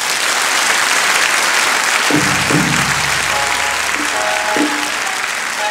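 Audience applauding as a rakugo story closes. About two seconds in, music comes in under the applause, with a few low drum strikes and short repeated notes.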